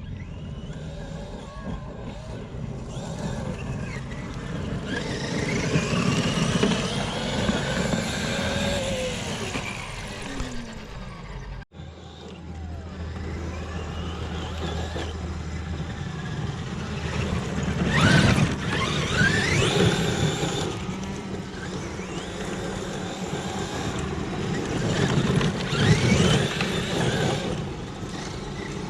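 Brushless electric motor of a 6S RC car whining up and down in pitch as it speeds up and slows, over a steady rushing noise, with loud surges three times.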